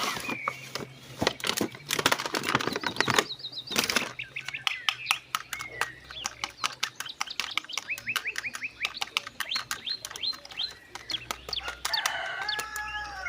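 Bird-like chirping with rapid clicks and flapping, many short rising chirps in quick succession.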